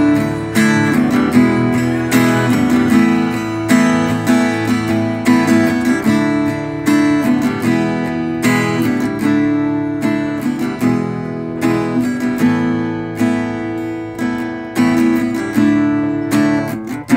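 Cutaway acoustic guitar strummed in chords, with a steady rhythm of repeated strokes and no singing.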